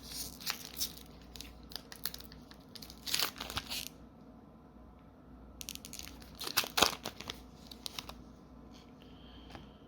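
A Magic: The Gathering booster pack's foil wrapper being torn open and crinkled. It comes in several bursts of rustling with sharp crackles, the loudest about seven seconds in.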